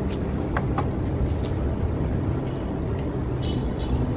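Kia Sorento's engine idling with a steady low rumble, and a few light clicks from the door's plastic trim panel being handled about half a second in.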